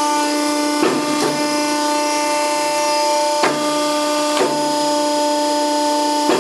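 Scotchman 65-ton hydraulic ironworker running with a steady hum from its pump motor, while the foot pedal cycles the shear blade three times. Each stroke opens and closes with a sharp clunk, with a deeper drone underneath while the ram is moving.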